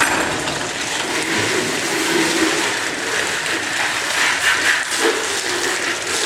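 Cold-water hose spraying water over buckets to rinse them off, a steady rush of water.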